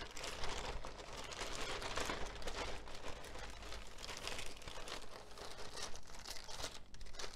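Plastic packaging rustling and crinkling as it is handled, a continuous run of small crackles.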